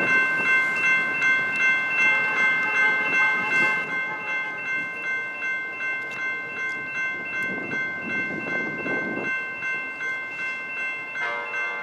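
Railroad grade-crossing bell ringing steadily, about two and a half strikes a second, as a passenger train approaches. Near the end the train's horn starts to sound.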